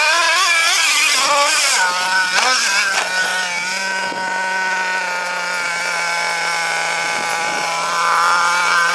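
Nitro engine of an RC truggy revving up and down, then running at a steady pitch for most of the time.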